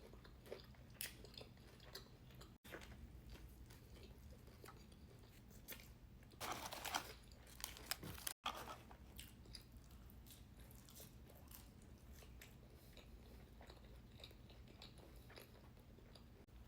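Faint, close-miked chewing and crunching of food, with small mouth clicks throughout and a louder crunchy stretch about six to seven seconds in.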